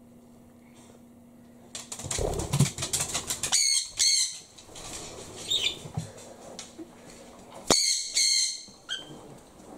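A key rattles and clicks in the front-door lock. Then a sun conure gives loud, piercing screeches in two bouts about four seconds apart: an excited greeting for its returning owner.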